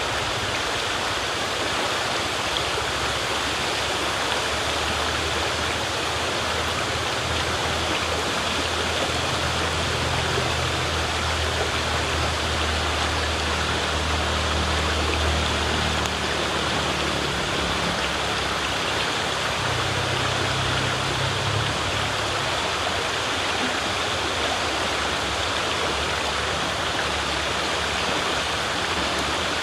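Steady rush of water flowing in a river, an even, unbroken sound.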